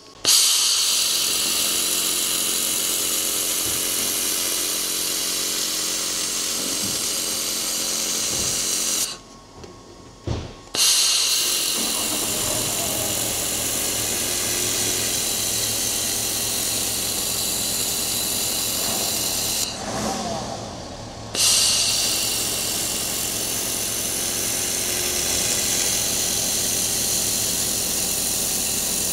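xTool MetalFab 1200-watt handheld laser welder making three long weld runs back to back on a car wing panel. Each run is a steady hiss, with short pauses about nine and twenty seconds in.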